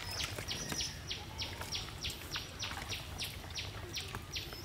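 A high chirping call repeated in a fast, even rhythm, about four chirps a second, over a low rumble.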